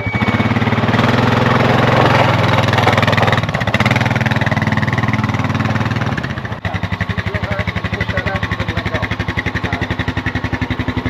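Four-wheeler (ATV) engine running under throttle, then dropping suddenly about six and a half seconds in to a steady idle.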